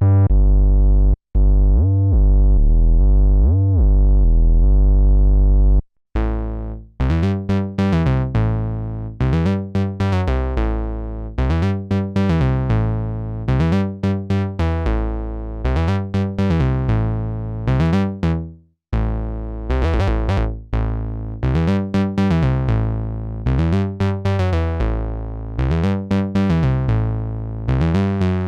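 Novation Bass Station II analog monosynth playing bass. For about six seconds it holds a deep, muffled tone with the filter closed. Then it switches to a brighter, plucky pattern of short repeated notes, each note bright at the start and quickly dulling.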